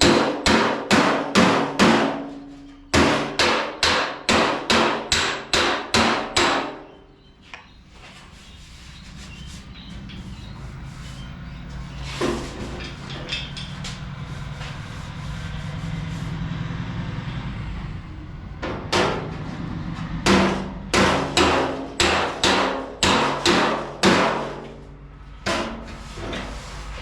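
Hand hammer striking a steel fender panel backed by a dolly, in quick runs of about three blows a second: panel beating to work out a low, oil-canning spot in the sheet metal. The hammering pauses for about ten seconds in the middle, leaving a steady low hum and a few stray knocks, then starts again.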